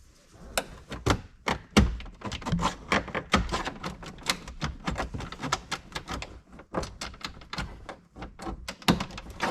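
Plastic dashboard trim panel being pried and worked loose by hand, a quick irregular run of clicks, snaps and knocks from its retaining clips and plastic edges.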